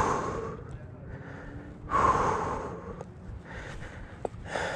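A mountain biker breathing hard close to the microphone while riding: a loud breath at the start and another about two seconds in, then weaker ones, with a couple of faint clicks.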